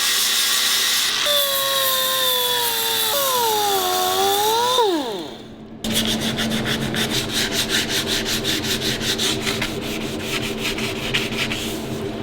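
A power tool working the welded metal fork brace, its whine sagging under load and then winding down about five seconds in. After that come quick, even back-and-forth rubbing strokes, about five a second, as the repair is rubbed down by hand.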